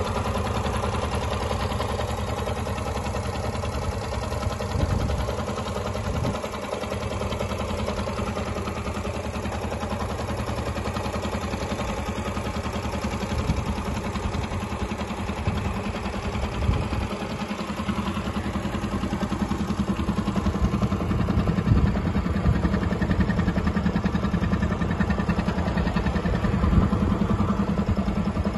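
Yamaha YBR125 Custom's 125 cc air-cooled single-cylinder four-stroke engine idling steadily in neutral, a little louder in the last third.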